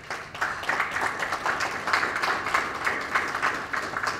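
Audience applauding: a steady spell of many hands clapping that dies away at the end.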